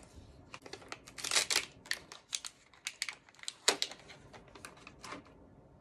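Tissue paper and gift packaging crinkling and rustling in a string of short, sharp crackles as items are pressed and tucked into a paper-lined gift box. The crackles stop a little after five seconds in.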